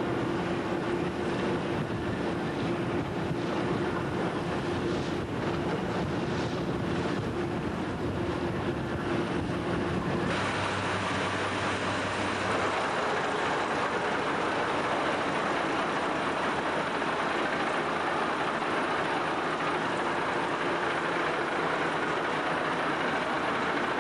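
A boat's engine running steadily with wind and water noise. About ten seconds in, the sound shifts abruptly: the low steady tones drop away, leaving a broader, even hiss.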